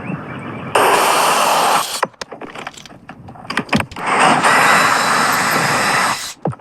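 A power tool running in two bursts: first for about a second, then for about two seconds, each starting and stopping abruptly, with clicks and knocks in between.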